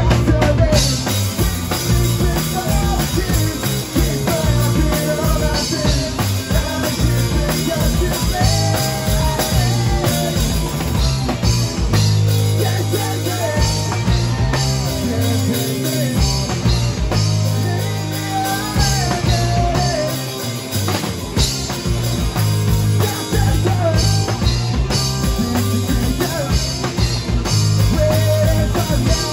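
Rock band playing live: distorted electric guitars over a steady drum kit and bass, with a voice singing the melody.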